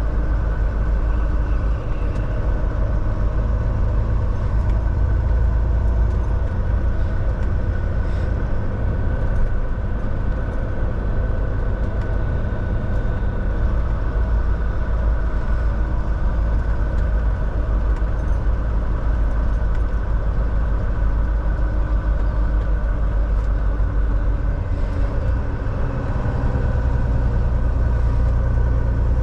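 Volvo semi truck's diesel engine running steadily. The low drone shifts a little near the end.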